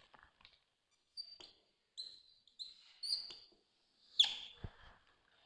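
Marker squeaking on a whiteboard in a series of short, high-pitched strokes as a heading is written. The loudest squeak, about four seconds in, comes with a sharp tap.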